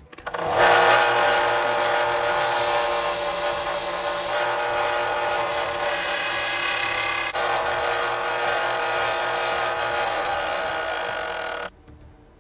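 Bench-top belt and disc sander running, with a small steel nylock nut being ground thinner against its belt. It is a steady motor whine with a grinding hiss that brightens in spells as the nut is pressed on. It starts about half a second in and cuts off near the end.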